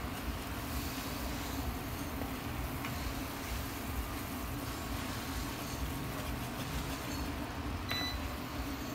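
Flour and melted butter cooking into a roux in a nonstick frying pan, stirred and scraped with a wooden spatula: a steady low hiss and rumble, with a couple of light clicks near the end.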